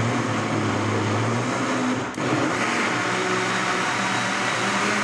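Electric countertop blender running at speed, mixing eggs, sugar and powdered milk into a batter. It dips briefly about two seconds in, then runs on with a higher whirr.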